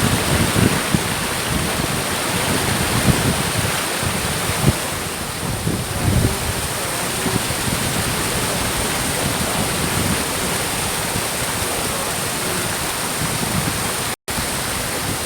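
Steady rush of falling water from a waterfall, with wind buffeting the microphone in low rumbling gusts. The sound cuts out for an instant near the end.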